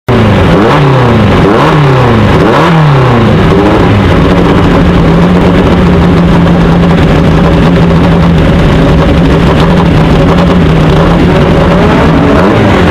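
Formula Easter racing car's engine on the starting grid, blipped three times with the pitch rising and falling each time, then held at a steady raised idle, and blipped again near the end.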